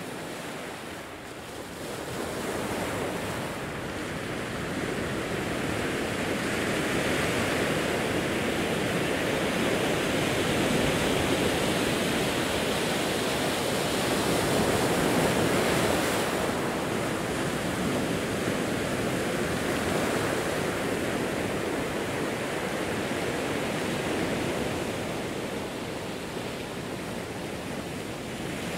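Ocean surf breaking and washing over a rocky shore, a continuous rush whose loudness swells and eases slowly as waves come in.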